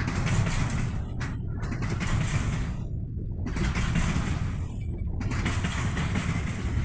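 Container freight train's wagons rolling past: a steady rumble of wheels on rail with a rattly clatter that dips briefly about every two seconds as the wagons go by.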